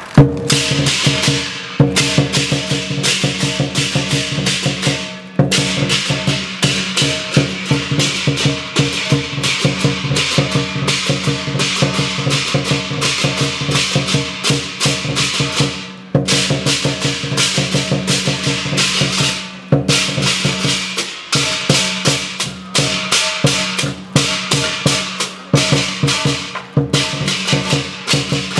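Chinese lion dance percussion: a drum beaten in rapid, even strokes with crashing cymbals, broken by short pauses a few times.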